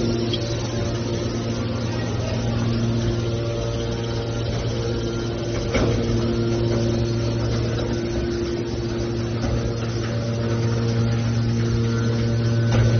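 Hydraulic metal baler running with a steady, even hum from its power unit, with a sharp metallic knock about six seconds in and another near the end.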